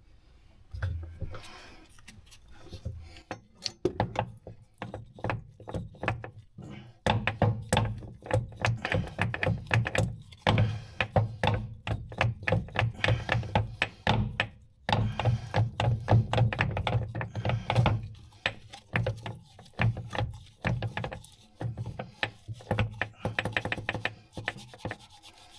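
Rapid, irregular knocking and clicking in bursts of several strikes a second, with short pauses between bursts.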